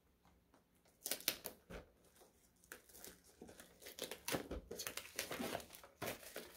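Small cardboard product box and its packaging being handled and worked open: irregular crinkling and tearing rustles with sharp crackles, starting about a second in.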